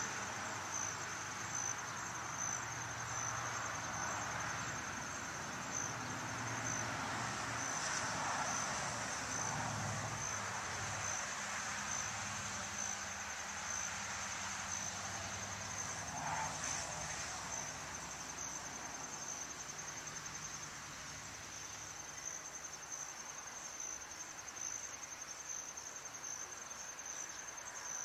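Crickets trilling steadily in a high, rapidly pulsing chorus. A faint low rumble lies under it and fades out about two-thirds of the way through.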